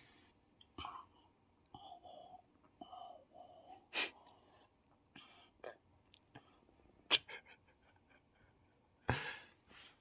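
A young child's quiet mouth sounds and breaths: short hums and puffs of air through pursed lips, with sharp clicks about four and seven seconds in, the second the loudest.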